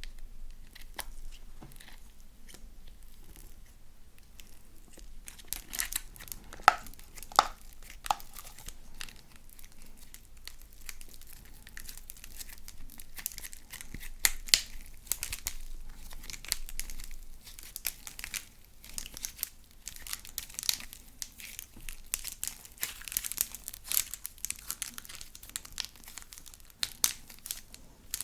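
Slime being mixed and squished by hand, giving a run of irregular crackles and small pops, sharper for a moment a few seconds in.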